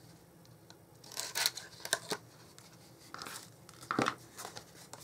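Cardstock and paper being handled on a craft table: a handful of short rustles and light taps, the clearest about a second and a half in and again near four seconds.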